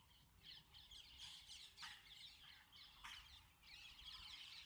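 Faint birds chirping and twittering continuously, with two short clicks about two and three seconds in.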